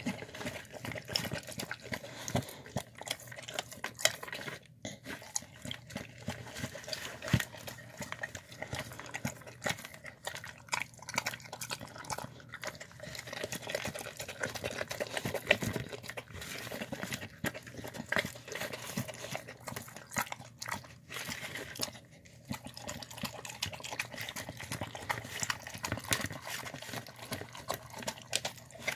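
A dog eating wet food from a clear plastic tub, close to the microphone: continuous, irregular chewing, licking and wet smacking.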